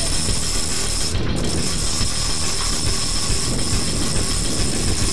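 Big-game fishing reel working under heavy load in a stand-up fight with a giant bluefin tuna, giving a ratcheting, geared mechanical sound over a steady low rumble.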